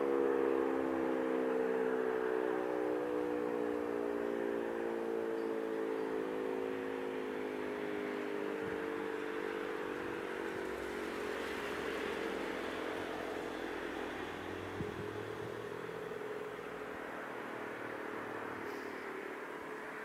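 E57 electromechanical air-raid siren winding down: its tone slowly falls in pitch and fades over about ten seconds, leaving a steady outdoor hiss.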